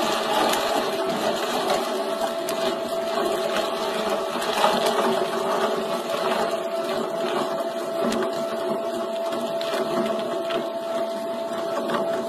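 Electric meat grinder's motor running steadily with a constant whine while meat is forced through the mincing plate.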